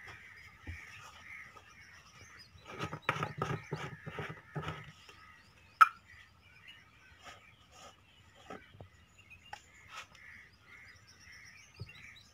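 Birds chirping repeatedly, with a quick run of knocks and clatter about three seconds in as plastic fuel cans are handled, and one sharp click about a second later.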